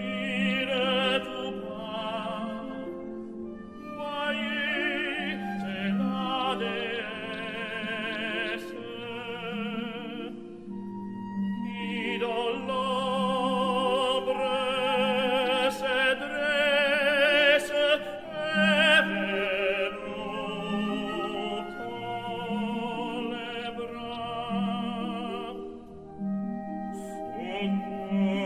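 Operatic singing with strong vibrato over an orchestral accompaniment.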